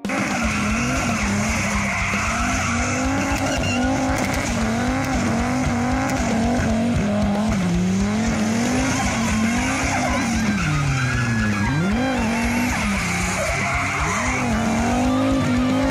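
Volvo 740 with a turbocharged B5234T five-cylinder engine on E85 and low boost, revving hard while it spins its rear tyres in a burnout, with steady tyre squeal. The revs rise and fall continuously, with one deep drop and pick-up about twelve seconds in.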